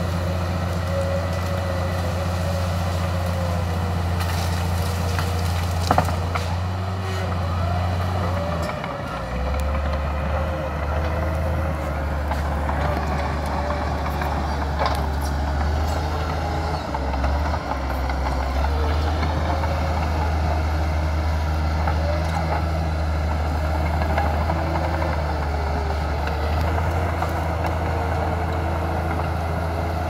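Crawler bulldozer's diesel engine running steadily under load while the blade pushes into trees and brush, with a wavering whine over the engine note. The engine note drops briefly twice, and there is a single sharp knock about six seconds in.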